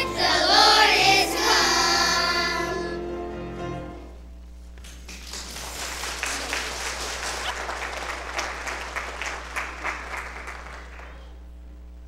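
Children's choir singing the last held notes of a song, which die away about three seconds in. An audience then claps for several seconds, and the applause fades out near the end.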